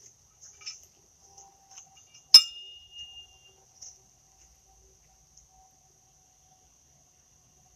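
A pitched steel horseshoe strikes the steel stake about two seconds in: one sharp metallic clang that rings on for about a second.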